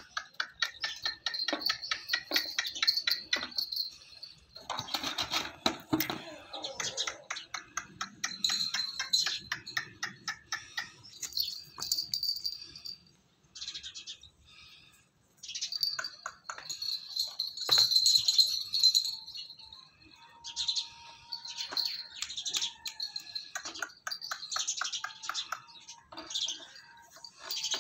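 Small birds chirping busily, rapid runs of short high-pitched chirps with a brief lull about halfway through.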